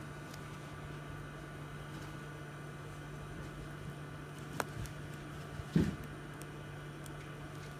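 Steady low electrical hum with light hiss, with two small clicks of tools handling the phone: a sharp one a little past halfway and a louder knock with a dull thud shortly after.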